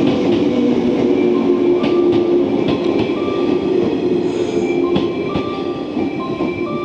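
A JR West 113 series electric train rolling slowly past along the platform as it pulls in to stop, a steady rumble and clatter of wheels on the rails that slowly eases off as the train slows.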